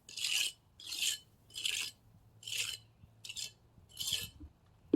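Steel trowel scraping wet self-bonding cement mix against concrete, in six even strokes about one every three-quarters of a second.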